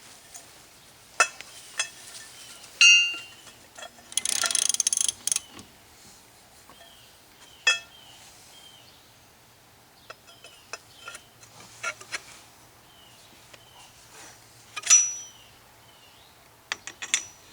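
Hand tools clinking against metal as a 32 mm socket is worked onto a drive axle's castle nut. Scattered sharp clinks, two of them ringing, with a rapid run of clicks about four seconds in.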